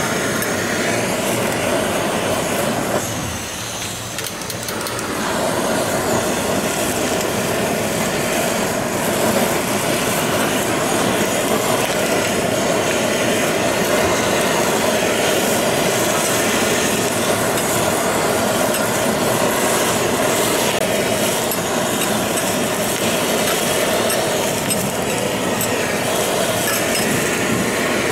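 Cubes of bluefin tuna sizzling steadily on a hot flat-top griddle, dipping briefly about three seconds in.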